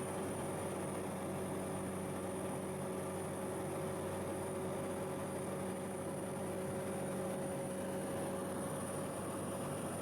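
Steady drone of a tour boat's engines: an even hum with a hiss over it, holding constant throughout.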